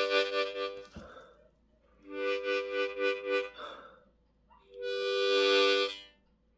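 Seydel diatonic harmonica in C played in chords: a short chord at the start, a pulsing chord about two seconds in, and a longer held chord near the end, with breath noise between them.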